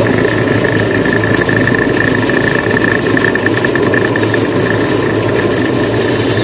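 Top-load washing machine's motor and gear case running steadily on test, a continuous hum with a steady high whine, the lid switch bypassed so it runs with the lid open.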